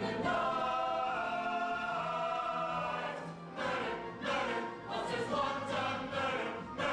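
Stage-musical ensemble singing in chorus with accompaniment: a long held chord for about three seconds, then shorter, rhythmic sung phrases.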